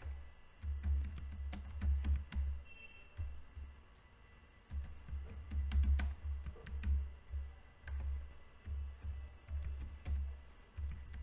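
Typing on a computer keyboard: runs of quick keystroke clicks, each with a dull thud, broken by a short pause about three to four seconds in.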